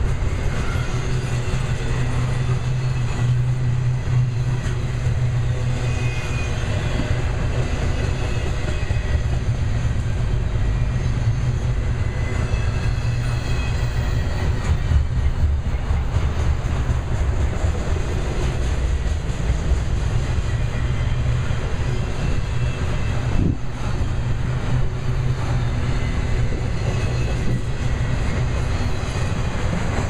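Double-stack intermodal well cars loaded with containers and trailers rolling past, a steady rumble and clatter of steel wheels on the rails.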